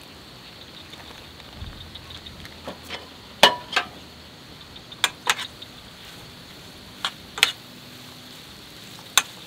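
Metal tongs clicking against a stainless frying pan, sharp clicks mostly in pairs every couple of seconds, over a faint steady sizzle of meat and onions frying on a portable gas stove.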